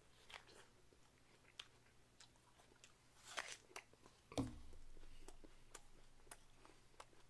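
Faint crisp crunching of a raw apple being bitten and chewed, with scattered sharp crunches. About four seconds in, a dull thud as the bowl holding the apple is set down on the desk.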